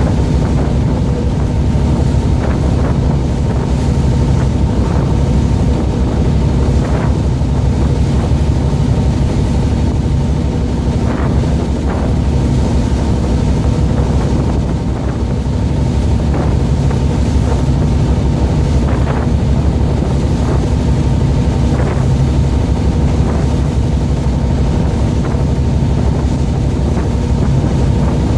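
A boat's engine running with a steady drone, with wind on the microphone and a few faint knocks now and then.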